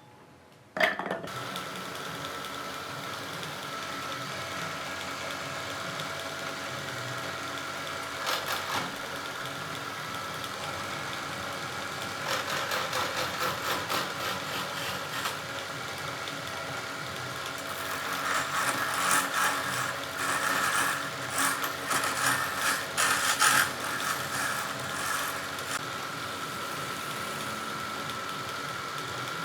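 Wood lathe motor starting up about a second in and running steadily with a constant whine. The turning tool cuts the spinning wood in irregular rough scraping bouts, loudest in the second half.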